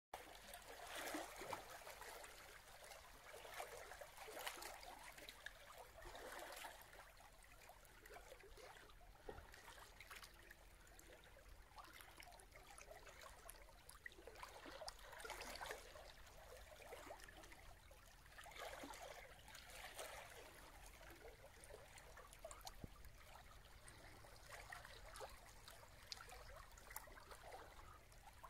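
Faint small waves lapping and trickling against a rock at the waterline, swelling and fading irregularly every few seconds.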